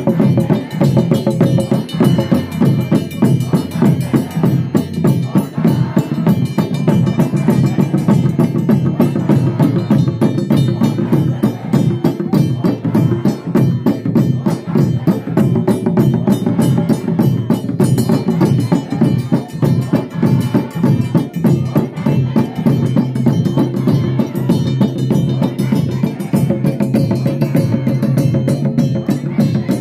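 Several large hand-held frame drums beaten with sticks in a fast, steady rhythm, as Akurinu church music for dancing.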